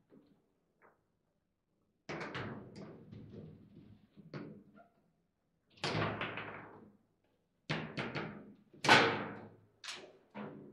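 Foosball table in play: the ball struck by the rod-mounted plastic players and knocking against the table, in bursts of sharp clacks and rattles with short pauses between. The hits start about two seconds in, and the loudest crack comes about nine seconds in.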